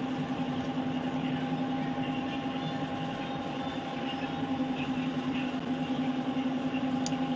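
Steady low machine hum at a constant pitch, with a faint click near the end.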